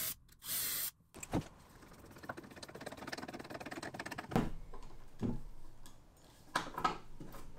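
Cordless drill running a self-centering (Vix) bit in two short bursts, drilling hinge screw holes, and stopping about a second in. After that come several light knocks and a rattle of the work and hardware being handled.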